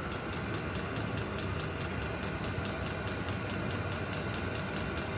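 VEVOR 8 kW diesel air heater running: a steady blower and burner noise with a faint whine, and even ticking about five times a second from its fuel dosing pump.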